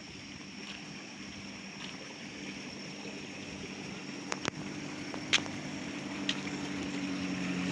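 A car approaching along the road, its engine hum growing steadily louder through the whole stretch. A few sharp clicks fall around the middle, and a steady high thin tone runs underneath.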